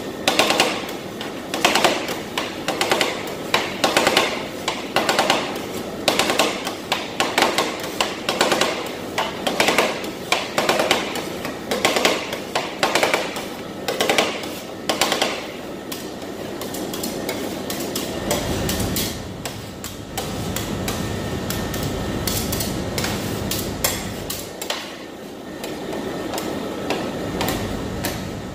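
Metal spatulas chopping on the steel cold plate of a rolled-ice-cream machine: rapid, repeated clanking strikes for about the first half, then softer steady scraping as the freezing mix is spread flat. A low hum comes in a little past the middle.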